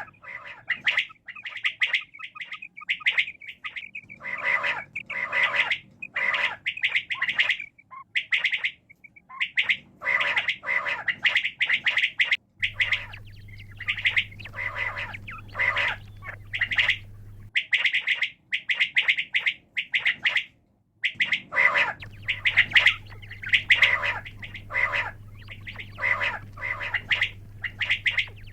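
Quail calling over and over in quick runs of short, sharp notes with brief pauses between runs. A low steady hum sits under some stretches.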